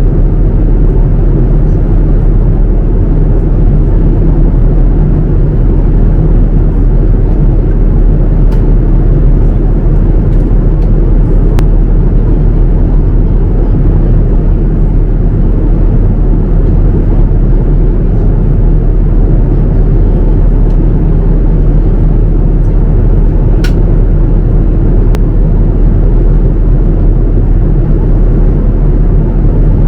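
Steady in-flight cabin noise inside a Boeing 787-9 airliner: an even rumble of engines and airflow, with a few faint clicks.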